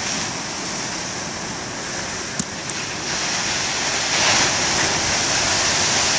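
Storm-driven ocean surf rushing steadily, with a big wave breaking and surging louder about three to four seconds in. A brief click about two and a half seconds in.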